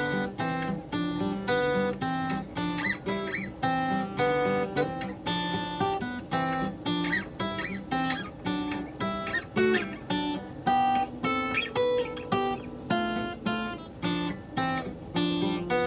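Acoustic guitar strummed in a steady rhythm, playing an instrumental break between sung verses.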